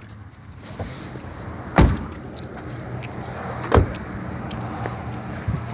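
Car door shut with a dull thump about two seconds in, then a second similar thump about two seconds later, over a steady low hum.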